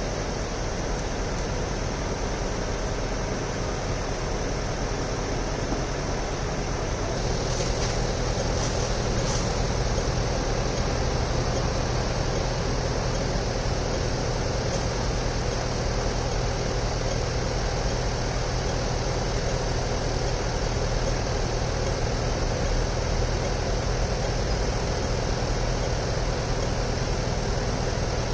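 Steady city street noise with a vehicle engine running; about seven seconds in it gets a little louder and a low steady hum comes in.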